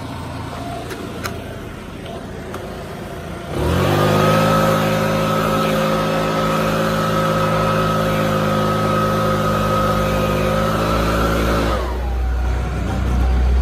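Robin NK8052H 80.6cc four-stroke backpack leaf blower idling, then opened up to full throttle about three and a half seconds in. It runs at a steady high speed with a high fan whine for about eight seconds, then drops back to idle near the end.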